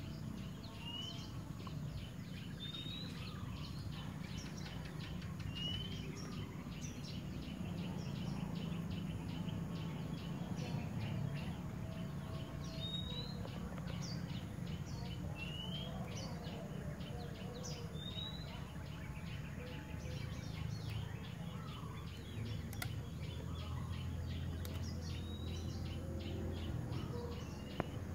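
Outdoor ambience: a bird repeats a short rising whistled note every two to three seconds over steady low background noise.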